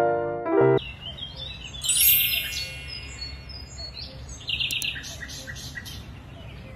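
Piano music that stops about three-quarters of a second in, followed by small songbirds chirping, with short bright trills about 2 and 4.5 seconds in.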